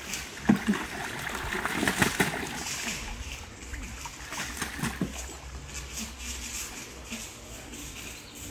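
Ducks splashing and dabbling in water: irregular small splashes and sloshes, busiest in the first few seconds.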